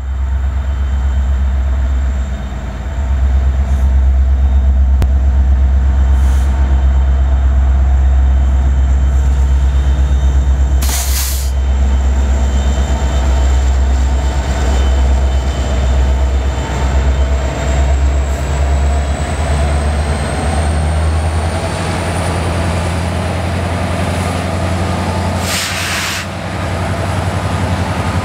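BNSF diesel locomotives pulling a coal train away, with a steady low engine rumble whose pitch rises gently past the middle as the engines work harder. Two short hisses of air break through, one about a third of the way in and one near the end.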